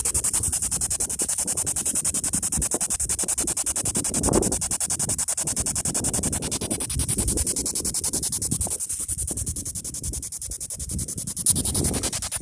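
P-SB7 spirit box sweeping through radio stations: a rapid, even, choppy stutter of static with a steady high hiss. Gusts of wind rumble on the microphone underneath.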